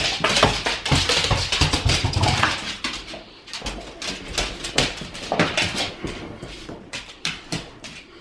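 Two pit bulls scrambling after a rubber toy ball on a hardwood floor, their claws clicking and scrabbling in a busy run of clicks and scuffs.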